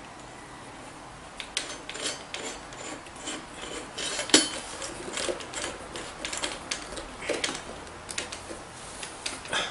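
Metal parts of a mixer drill being fitted together by hand: irregular clicks, knocks and scraping, starting about a second and a half in, with the sharpest knock about midway.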